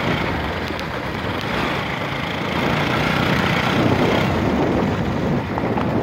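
A vehicle driving on a rough gravel mountain road: steady engine and road rumble with small rattles.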